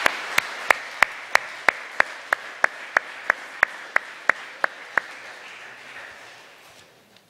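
Audience applause, with one clapper's loud, even claps about three a second standing out over the general clapping; those claps stop about five seconds in and the applause fades away near the end.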